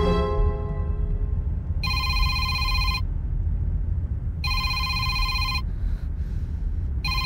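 Telephone ringing with an electronic ring: about one-second rings repeating every two and a half seconds or so, the first about two seconds in. A steady low rumble sits underneath.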